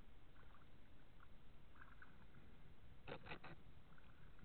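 Kayak paddling on calm water: faint drips and small splashes from the paddle over a low steady rumble, with three quick knocks about three seconds in.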